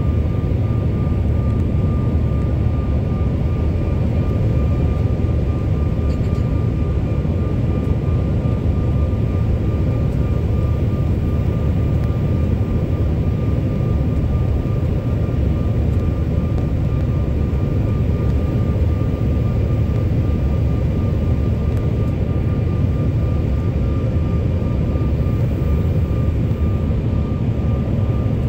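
Airliner cabin noise during descent: a steady low rush of engine and airflow heard from inside the cabin, with a faint steady high whine over it.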